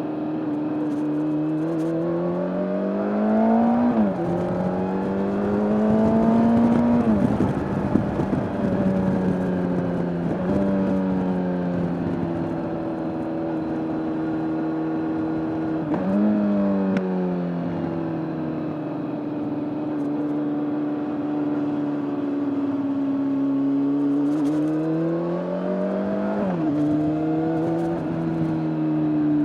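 2003 Kawasaki ZX-6R's inline-four engine under way, its pitch climbing with the revs and then dropping sharply at gear changes, about four times. Wind rush swells strongest around six to nine seconds in.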